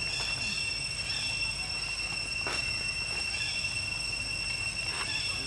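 Steady high-pitched insect drone, with faint short chirps over it and a single soft click about two and a half seconds in.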